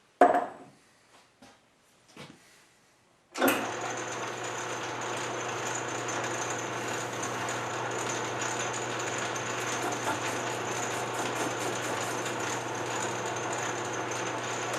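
A few knocks of metal parts being handled, the first one loud. Then, about three and a half seconds in, an electric shop machine starts suddenly and runs steadily, with a constant low hum and a high whine.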